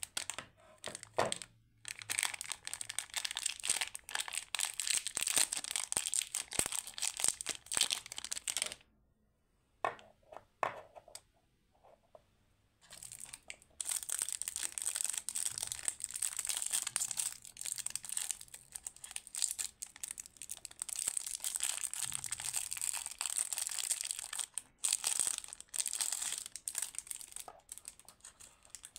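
Plastic lollipop wrappers crinkling and tearing as they are pulled off by hand. First comes a Chupa Chups wrapper, then a few seconds of near quiet with a few small clicks about a third of the way in, then a clear cellophane wrapper peeled from a watermelon-shaped lollipop.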